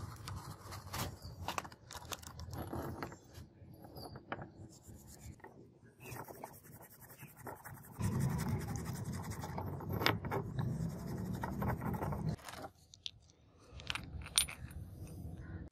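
Scraping and scratching as small cast-metal knife parts are rubbed with steel wool and picked clean by hand, with scattered light metallic clicks and clinks as the pieces are handled; the scraping is busiest in the middle of the stretch.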